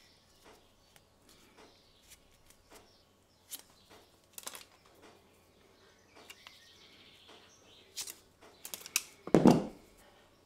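Handling sounds from working a foam boot onto a soldering iron handpiece: scattered light clicks and small squeaks of foam and plastic, with a louder rubbing thump about nine seconds in.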